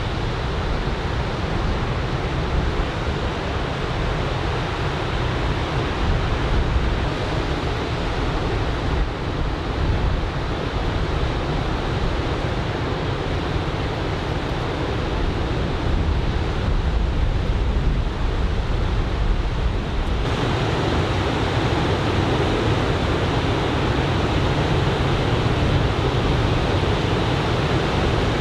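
Ocean surf from a typhoon swell breaking along the beach: a steady rushing wash with a deep rumble underneath. Its tone shifts suddenly about two-thirds of the way through.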